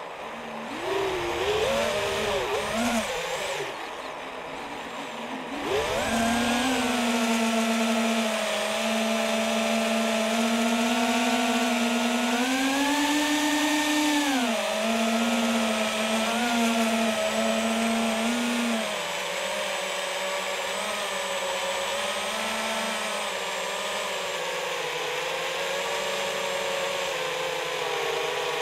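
FPV quadcopter's electric motors and propellers whining, heard from the onboard camera, the pitch rising and falling with the throttle. There are a couple of quick rising surges, a brief drop about four seconds in, then a steady whine that climbs for a couple of seconds past the middle and settles lower after that.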